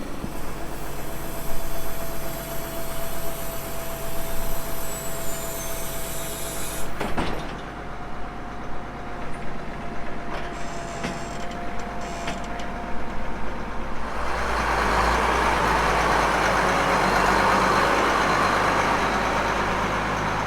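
Air blowing through a corn planter to clean the seed out: a steady hissing rush with a machine whine in the first part, swelling into a broader, louder rush of air about two-thirds of the way through.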